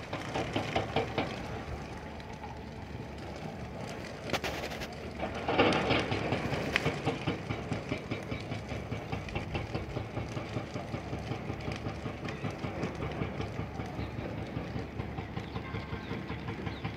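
Burning dry bushes crackling and popping in dense, irregular clicks, with a louder rush of noise about five seconds in.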